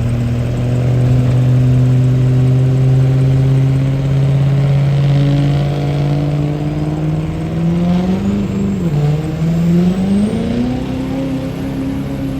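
Pickup truck engine under full load pulling a sled, its revs climbing steadily. The revs dip briefly about nine seconds in, then climb again and hold near the end.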